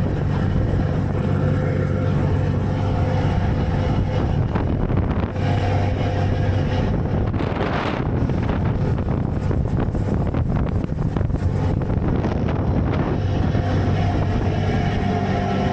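Ferry engine running with a steady low drone, and wind buffeting the microphone; a louder rush of wind about eight seconds in.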